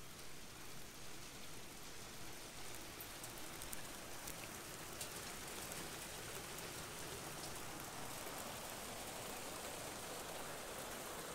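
Hailstones falling on a garden patio and beds: a faint, even patter with a few sharper ticks of single stones striking.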